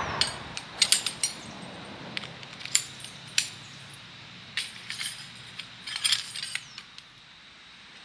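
Irregular light metallic clinks and clatter of small hard objects being handled, in scattered clusters with short ringing tails.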